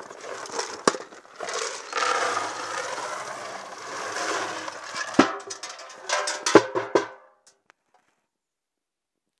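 Handling noise of a camera being moved and set in place under a wooden feeder roof: rustling and crunching with several sharp knocks. The sound cuts off abruptly a little after seven seconds in.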